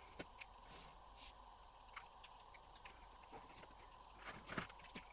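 Very quiet, with faint scattered clicks and light taps of a Posca paint pen and paper being worked on a craft table, and a short cluster of slightly louder taps about four and a half seconds in.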